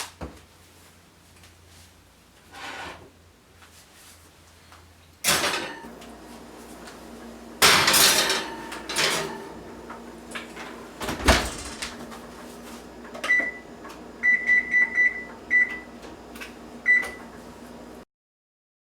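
Oven door clunking open and shut with a few knocks as the tray goes back in, then a run of short high beeps from the oven's keypad as the timer is set.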